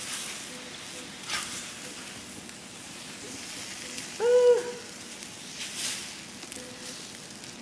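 Vegetable pancake batter sizzling on a hot electric griddle while a wooden spatula scrapes across the plate, cutting and lifting the pancake. About four seconds in there is a brief hum-like note, the loudest sound here.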